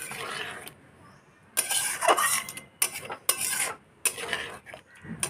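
A metal spoon stirs a thick egg curry in a metal pan, scraping against the pan's sides and bottom. After a short quiet spell there are four or five scraping strokes, starting about one and a half seconds in.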